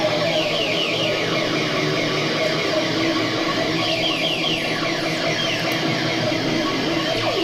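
Homemade dub-siren-style dual oscillator sounding a dense electronic drone: a steady low tone under repeated quick falling chirps, the pitches gliding as its knobs are turned.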